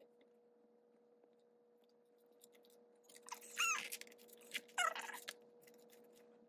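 Plastic binder pages and sleeves being handled, crinkling and squeaking in two short bursts about three and five seconds in, over a faint steady hum.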